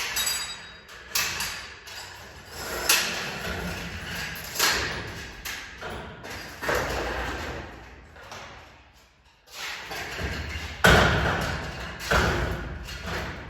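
A series of thumps and knocks, roughly one every one to two seconds, each dying away briefly after the hit. There is a short lull just before the loudest knock, near the end.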